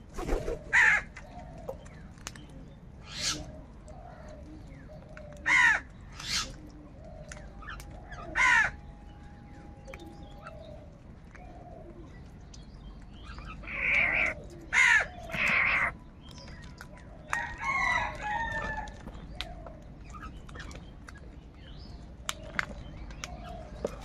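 House crows cawing: short harsh caws every few seconds, a quick run of three loud caws a little past halfway, then a longer, wavering call.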